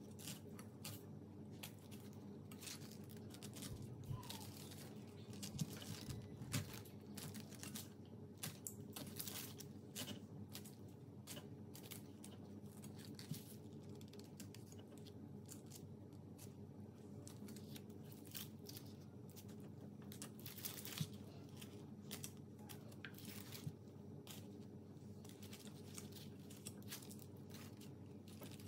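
Chef's knife cutting into a peeled pineapple, a long run of short, irregular crunchy cuts and scrapes through the fruit as the eyes are cut out. A faint low hum sits underneath.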